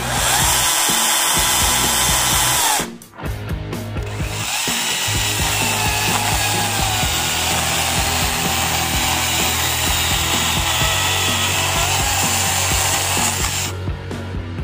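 Blue Bird THCS 22-07 battery pruning chainsaw with a brushless motor. It whines up and runs free for about three seconds, then stops. It runs again for about ten seconds as it cuts through a log, its pitch wavering and dipping under the load of the cut.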